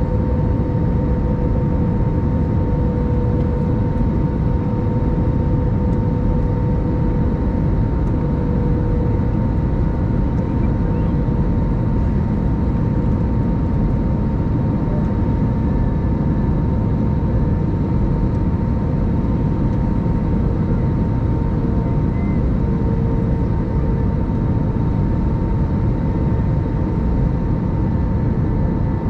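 Airbus A321-200 cabin noise in flight: a steady drone of engine and rushing air, with a constant whine and a lower hum that wavers slightly in pitch.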